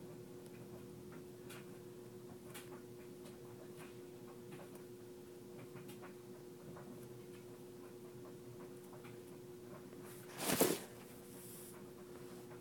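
Faint, scattered rustles and light ticks of hands working long hair into a braid, over a steady low hum. About ten seconds in comes a brief, much louder rustle.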